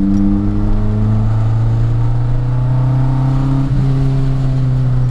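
Modified Nissan 240SX S13 engine running at steady revs as the car drives, heard from inside the cabin, a level drone with a short click about four seconds in.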